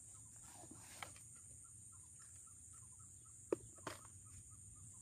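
Faint steady insect drone with a small repeated chirping, a few chirps a second, from the swamp's insects or birds. Two sharp plastic clicks about three and a half seconds in, as a plastic lure box is handled.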